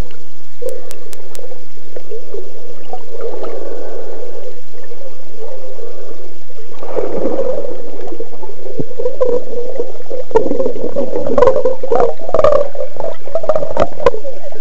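Muffled underwater sound: a dull, wavering rush of water, joined in the second half by a series of sharp clicks and knocks.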